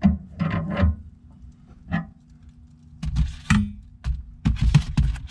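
Irregular clicks and clanks of metal tools and the stowed jack being tightened down in a car's spare-tire well, with clusters at the start, about two seconds in, and again over the last two seconds.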